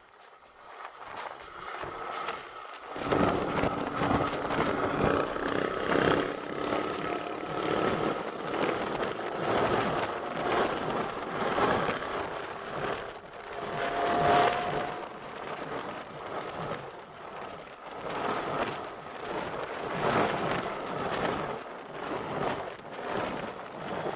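Wind rushing and buffeting over the microphone of a motorcycle at road speed, getting louder about three seconds in, with the motorcycle's engine faintly underneath.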